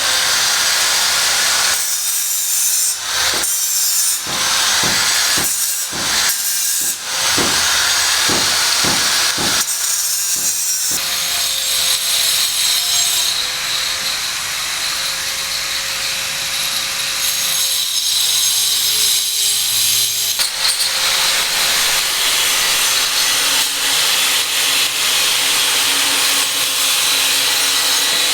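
Power tool cutting on a building site: a loud, steady hiss with a faint wavering whine. It breaks off briefly several times in the first ten seconds.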